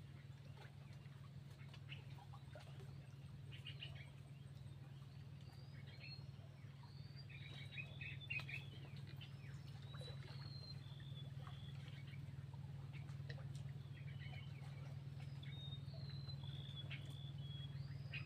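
Small birds chirping in short, high calls, scattered through and busier in the middle and near the end, over a steady low hum.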